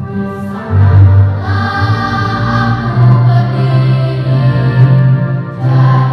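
Children's school choir singing a song in full voice, with sustained low accompaniment notes beneath the voices. There is a brief break between phrases near the end.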